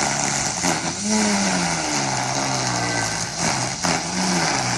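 Construction machinery engine running at a concrete pour, its pitch rising and falling repeatedly over a steady mechanical noise.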